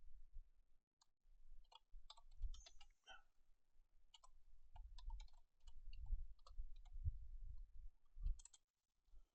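Computer keyboard typing: irregular runs of key clicks, with soft low thumps from the keys striking the desk.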